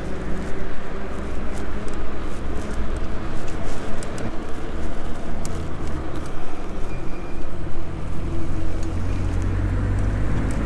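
Wind rushing over the microphone and road rumble from a moving electric bicycle, its loudness rising and falling unevenly. In the last few seconds a steady low hum joins in, from a car close alongside.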